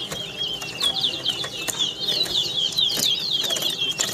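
Caged towa-towa seed finch singing a rapid, continuous warbling song of quick chirps in a song-count race, with a few sharp clicks.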